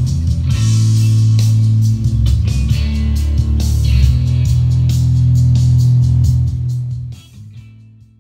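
Music with guitar, bass and drums, played from a CD on a Pioneer PD-5700 player through the hi-fi's loudspeakers. It drops away about seven seconds in and fades out.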